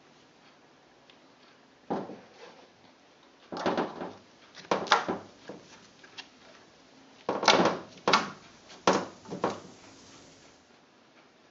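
A wide brush swept across wet photogravure gelatin tissue in an enamel tray, in a handful of short separate swishing strokes that come in two bunches, spreading the sensitizer.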